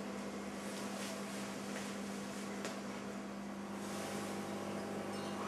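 Steady low electrical hum with an even hiss underneath: room tone.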